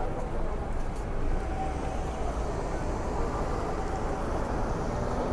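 Shopping street ambience: a steady wash of crowd noise with faint fragments of distant voices and no single event standing out.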